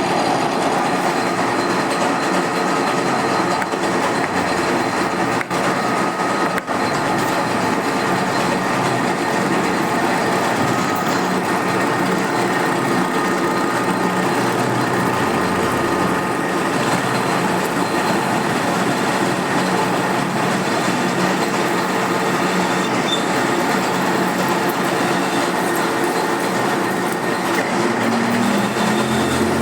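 Machine tool running steadily while machining a metal spacer: a continuous, even mechanical noise with a few steady tones, starting with a sudden onset just before and not letting up.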